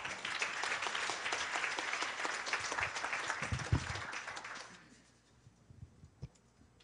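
Audience applauding after a talk, a dense patter of many hands clapping that dies away after about five seconds. A few low thumps come partway through.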